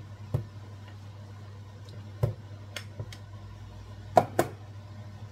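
A plastic rice paddle scrapes and knocks cooked rice out of a rice-cooker pot into a cooking pot. There are several short sharp knocks, the loudest two close together about four seconds in, over a steady low hum.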